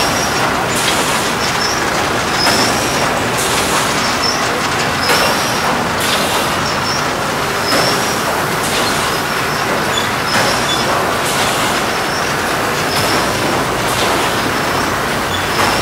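Industrial powder-handling machinery running steadily, with a repeating work cycle: a short high hiss and squeak about every second and a half, and a stronger pulse every two and a half seconds or so.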